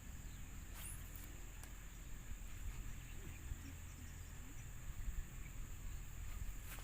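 Insects chirring in a steady high tone over low rumble, with a couple of faint clicks about a second in.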